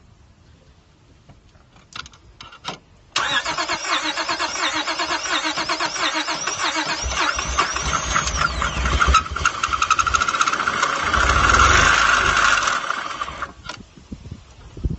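A few faint clicks, then about three seconds in the 2003 Honda Accord's 3.0-litre V6 is started and runs loudly for about ten seconds, with some rising and falling pitch, before it cuts off suddenly. The owner says this engine has a misfire.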